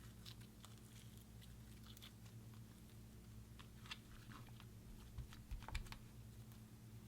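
Slime being pressed and mixed by hand: faint, scattered sticky clicks and crackles, with a cluster of louder pops about five to six seconds in, over a low steady hum.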